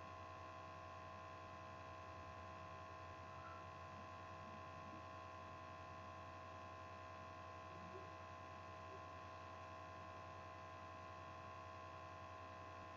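Near silence: a faint, steady electrical hum with a few fixed higher tones over light hiss, unchanging throughout.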